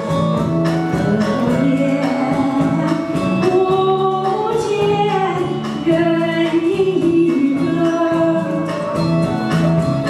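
A woman singing a Chinese song into a microphone over a karaoke backing track with a steady beat.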